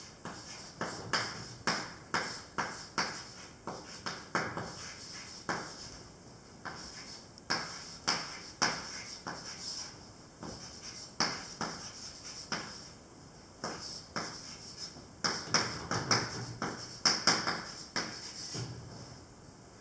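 Chalk writing on a blackboard: an irregular run of short taps and scratches, a few each second.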